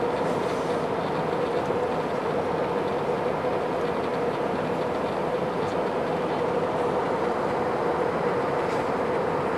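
Steady cabin noise of an Airbus A320 in flight: an even rush of engine and airflow noise with a steady mid-pitched hum running through it.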